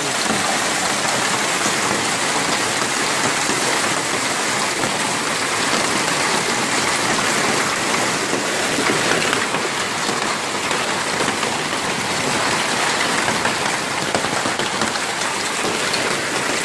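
Heavy hail mixed with rain, large hailstones of about 20 mm hitting the ground and roofs in a dense, steady downpour.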